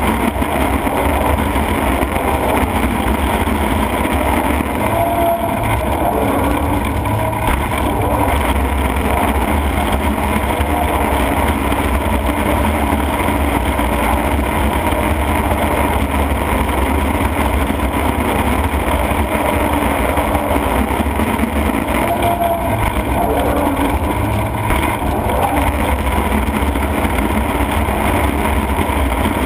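TANA Shark 440DT waste shredder running steadily under load, its engine and cutter rotor grinding and tearing a hopper full of used tires.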